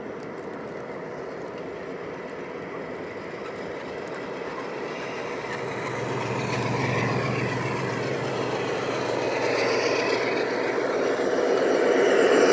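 G scale model freight train rolling past, its hopper cars' wheels rumbling along the rails. From about halfway, the rear helper locomotives pass, and their motors add a low hum and a whine that grow louder toward the end.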